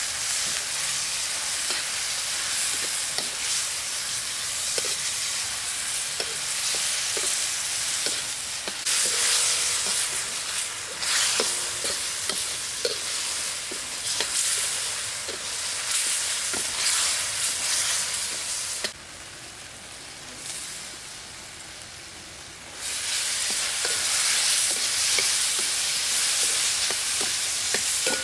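Beef and broccoli sizzling in a steel wok while a metal ladle stirs and scrapes against the wok, with small clinks. The sizzle drops away for a few seconds about two thirds of the way through, then comes back as loud as before.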